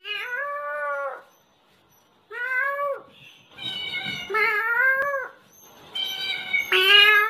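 Long, drawn-out cat meows traded back and forth, about five calls with two overlapping near the middle, as between a cat and a man imitating its meow.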